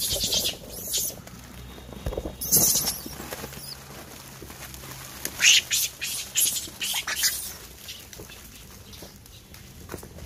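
Rhesus macaques scrambling over a cardboard box of plastic-wrapped biscuit packets: irregular short bursts of crinkling and rustling as packets are grabbed and torn from the box.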